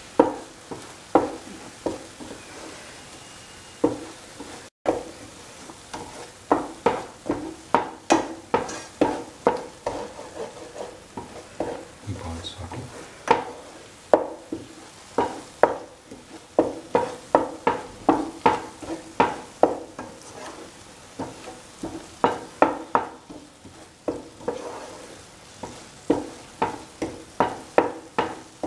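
A spoon scraping and knocking against a pan while a thick coconut and shallot masala paste is stirred and sautéed. The strokes come about two to three a second in runs with short pauses, over a faint steady sizzle.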